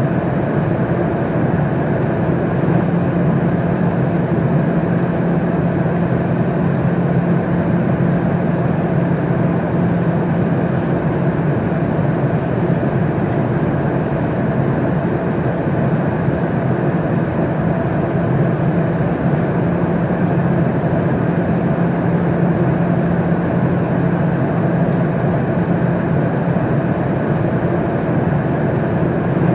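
Steady airliner cabin noise in flight: an even rush of engine and air noise with a constant low hum, unchanging throughout.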